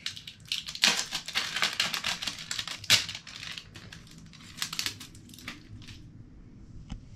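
Crinkly toy packaging being peeled and torn off a small plastic LOL Surprise Lils capsule, a busy run of crackling with a sharper snap about three seconds in. The rustling dies down after about five and a half seconds.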